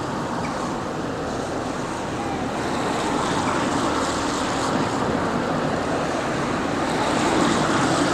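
Steady rushing outdoor background noise of wind and road traffic, growing slightly louder toward the end.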